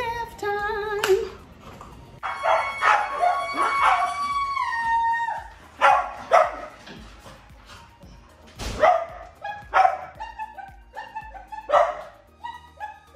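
Small dogs, Cavalier King Charles spaniels, barking in sharp single barks, about seven spread through the stretch, over background music.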